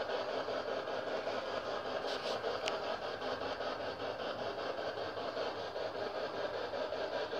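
PSB7 spirit box sweeping through radio stations: steady radio static chopped into a fast, even stutter, with a brief higher blip between two and three seconds in.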